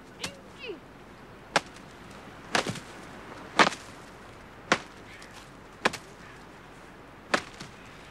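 A stick being swung and struck: seven short, sharp cracks about a second apart, some with a brief rustling tail.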